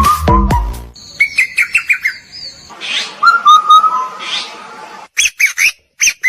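Electronic music cuts off about a second in, giving way to birds chirping and calling in quick, short whistled notes, with a few brief silent gaps and a burst of sharp chirps near the end.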